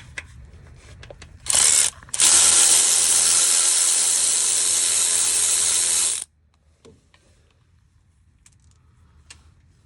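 A ratchet wrench backing out a 10mm bolt: a short burst, then about four seconds of continuous ratcheting that stops suddenly.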